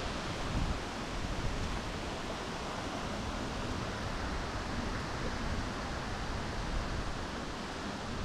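Steady rush of river water, with wind buffeting the microphone as an uneven low rumble.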